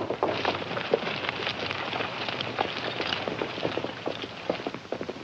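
Many hooves trampling on dirt, a steady, dense patter of hoofbeats with no single beat standing out.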